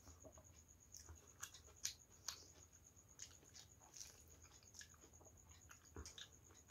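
Faint eating sounds: soft, irregular clicks and squishes of fingers mixing rice and dal on a stainless steel plate, with chewing. A couple of sharper clicks come about two seconds in.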